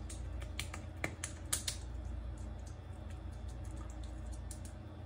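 Wet pats and smacks of fingers on a cheek, spreading watery hot sauce like shaving lather: a quick run of sharp clicks in the first two seconds, then fainter ticks, over a steady low hum.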